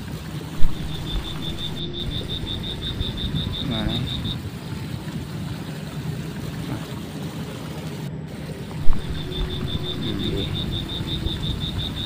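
A high, even pulsing trill of about seven pips a second from a calling animal, heard twice for a few seconds each time, over a low outdoor rumble. Two sharp loud knocks, about half a second in and near nine seconds, are the loudest sounds.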